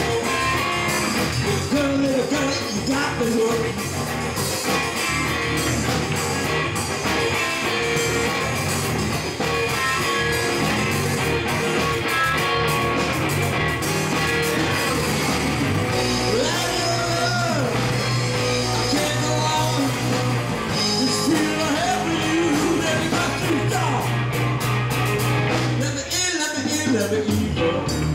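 Live rock band playing, with electric guitar and electric bass under a man's singing voice.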